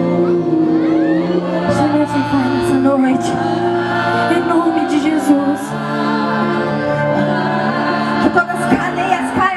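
Gospel worship music: singing over sustained, held chords.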